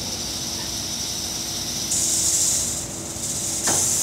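Ryko SoftGloss Maxx automatic car wash running: a steady hiss of water spray over a low machine hum. The spray gets louder about two seconds in, eases off, then comes back suddenly near the end.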